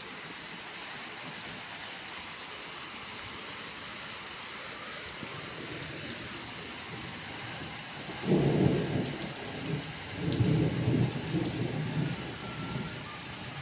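Heavy rain falling steadily, then a rumble of thunder about eight seconds in that rolls on in several swells.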